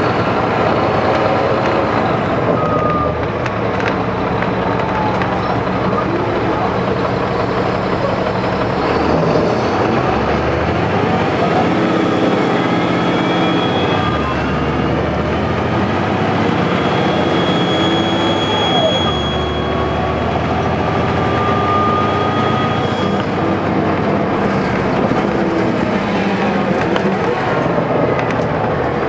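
NABI 416.15 transit bus with a Caterpillar C13 diesel and ZF Ecomat transmission driving. The diesel's steady drone changes pitch several times, and thin whines glide up and down over it.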